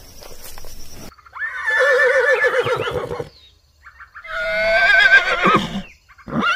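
Horse whinnying twice. Each call lasts about two seconds and has a quavering, shaking pitch, and the second ends in a falling tail. A third whinny begins at the very end.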